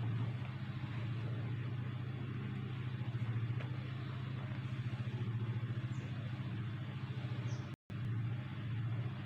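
A steady low hum, like a small motor or electrical device running, with one very brief cut to silence near the end.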